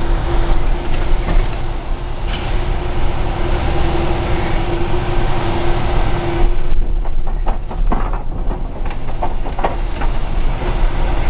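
Big-rig tractor-trailer driving on city streets, heard from inside the cab: a steady low engine and road rumble. A hum runs through the first part and stops about two-thirds of the way in. A run of clunks and rattles follows.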